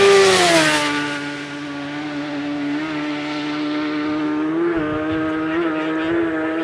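Racing superbike passing at full speed, loudest as it goes by, its engine note dropping sharply in pitch, then a steady high engine note with a few brief wobbles in pitch as it carries on down the road.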